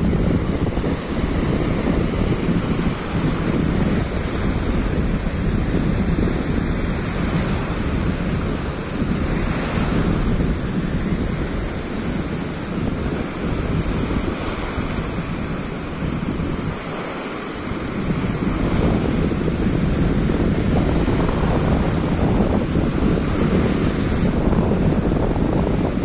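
Sea surf: small choppy waves breaking and washing onto a sandy beach in a steady wash, with wind buffeting the microphone. The sound eases briefly about two-thirds of the way through.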